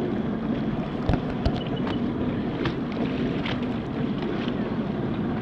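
Jet ski engine running steadily, with wind buffeting the microphone and two low thumps about a second in.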